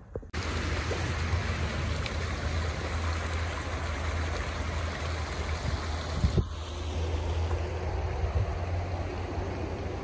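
Steady rushing noise with a strong low rumble, starting abruptly and broken briefly about six and a half seconds in.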